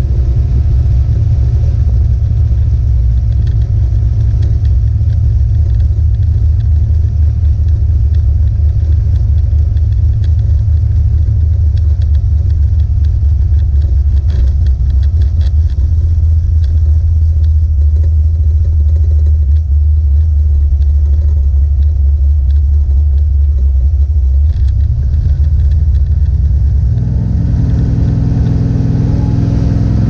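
1970 Plymouth Duster's 440 big-block V8, heard from inside the cabin, running with a steady deep rumble while the car is driven. Near the end the note rises as the engine revs up.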